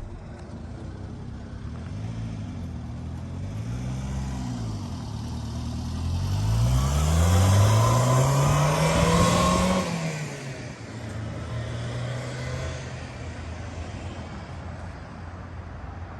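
Subaru Sambar mini truck's small supercharged four-cylinder engine revving: the revs rise and fall twice, then climb steadily for about four seconds and drop away suddenly about ten seconds in, after which the engine runs low and steady.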